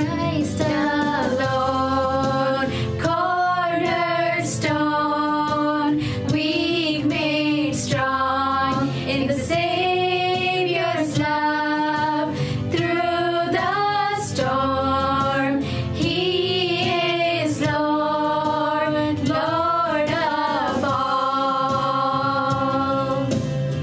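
Worship music: voices, mostly women's, singing long held notes with a wavering vibrato over an instrumental accompaniment.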